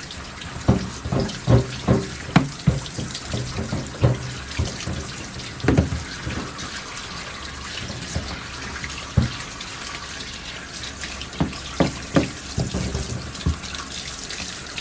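Water running and spraying steadily during a dog's bath, with a dozen or so short knocks and thumps, bunched in the first few seconds and again near the end.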